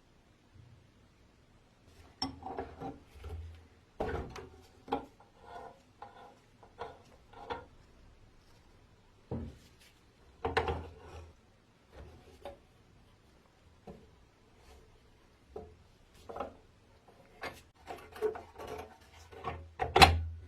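Parts of a vintage coffee grinder being handled: irregular knocks, clicks and short scrapes of wood and metal, with a sharp knock near the end the loudest.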